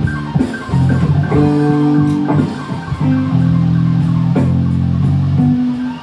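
Background rock-blues music: guitar and bass guitar playing an instrumental passage.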